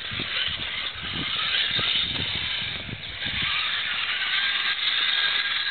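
Radio-controlled 2.2 rock crawler (TLT Eskorpion chassis) driving over rock and grass, its small electric motor and gears whining under a hiss. There are irregular low thumps in the first few seconds, and from about four seconds in a steady thin whine holds.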